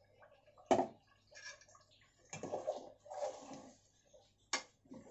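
Metal slotted spoon stirring raw rice into a liquid masala gravy in a metal cooking pot, with wet sloshing and scraping. Two sharp clanks of the spoon against the pot, the louder about a second in and another near the end.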